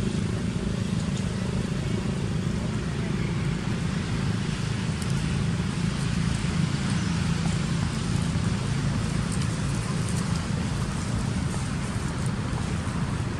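Steady outdoor background noise: an even low rumble with a hiss above it, unchanging throughout, with no distinct event standing out.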